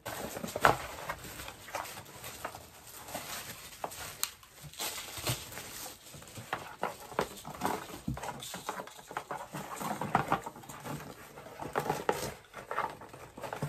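Small cardboard boxes being opened and handled: irregular scraping, tapping and rustling of cardboard and packaging, with one loud sharp knock just under a second in.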